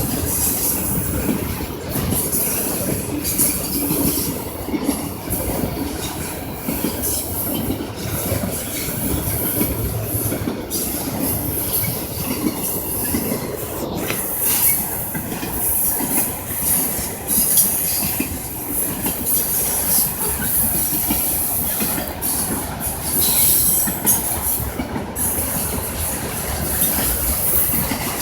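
Manifest freight train's cars rolling past steadily, a continuous wheel-on-rail rumble with occasional knocks and clanks.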